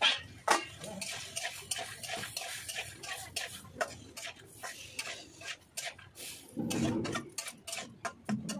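Metal spatula scraping and clinking against a metal wok (kadhai) while stirring sliced tendli (ivy gourd) and potato, a quick irregular run of clicks, with two loud clinks right at the start.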